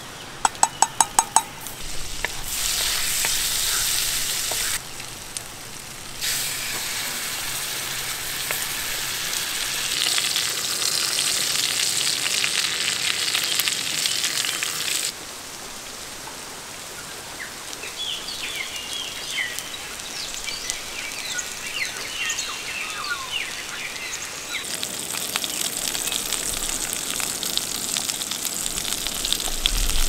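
Butter and meat sizzling in a hot frying pan on a canister gas stove, the sizzle coming and going in stretches. A quick run of about seven sharp clicks comes about a second in.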